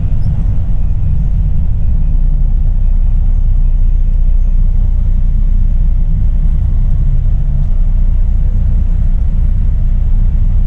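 Steady low engine and road rumble of a moving truck.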